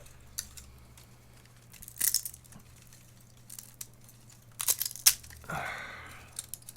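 3D-printed ABS plastic cracking and snapping as printed parts are pried off their support raft: scattered sharp cracks, one about two seconds in and a quick cluster around five seconds.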